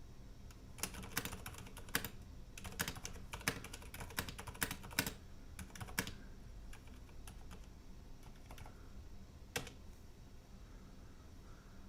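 Keystrokes on a mechanical keyboard with Cherry MX Silent Red switches: a burst of quick typing for about five seconds, then a few scattered single key presses.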